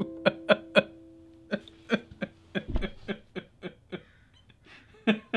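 Ukulele's last strummed chord ringing on and fading away over about two and a half seconds, with a dull thump just after it dies. Over and after it comes a run of short, sharp bursts, about four a second, with a louder pair near the end.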